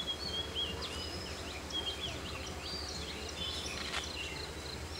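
Several birds calling at once, overlapping short whistled chirps and quick up-and-down glides, over a steady low hum; a single sharp click about four seconds in.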